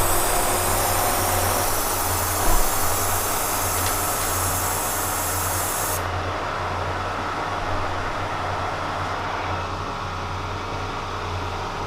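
K&T 307 milling machine taking a heavy roughing cut in tough steel: a steady running and cutting noise over a low hum, with a high hiss that cuts off abruptly about six seconds in.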